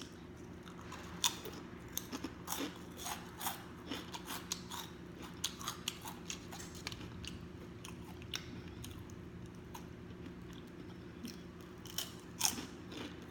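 Close-miked chewing of crunchy food: a string of irregular crunches and wet mouth clicks, with no steady rhythm.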